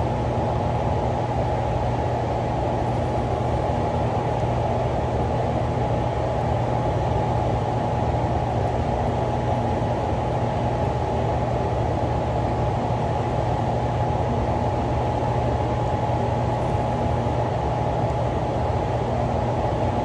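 Steady rush of water pouring over a dam spillway and running through the river below it, with a low hum and a thin high tone held steady underneath.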